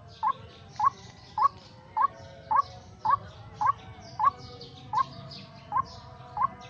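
White-breasted waterhen (ruak-ruak) calls, one short rising note repeated very evenly about twice a second, as used to lure the birds into a trap.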